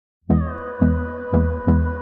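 Background music starting about a quarter second in: a steady beat about twice a second under sustained synth chords.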